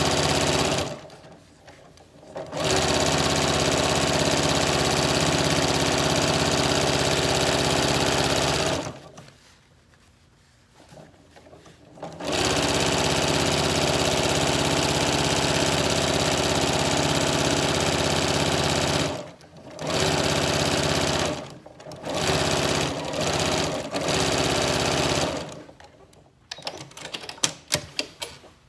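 Janome sewing machine stitching bias tape down along a fabric edge in several runs of steady motor running with brief stops between them, the longest run about seven seconds. Near the end the machine stops, and a few sharp clicks follow.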